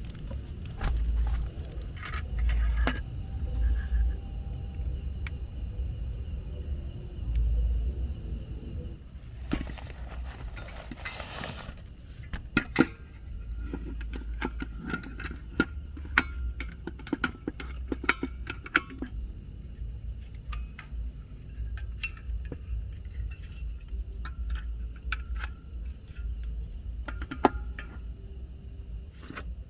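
Scattered small clicks and clinks over a low rumble, with a longer rustling stretch about ten seconds in.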